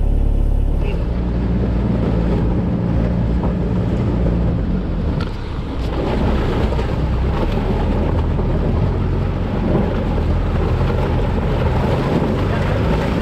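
A Sherp amphibious ATV's engine running steadily as its big tyres churn through water and broken river ice, splashing.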